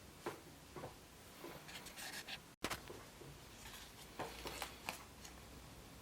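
Faint wrapper crinkling and small plastic clicks from hands handling a surprise egg and its toy, in short irregular bursts.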